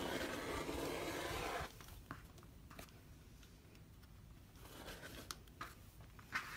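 Rotary cutter run along an acrylic quilting ruler, slicing through layers of fabric on a cutting mat: a scratchy cut lasting about a second and a half. Lighter rustling and small clicks follow as the trimmed strips are handled, with one sharp click near the end.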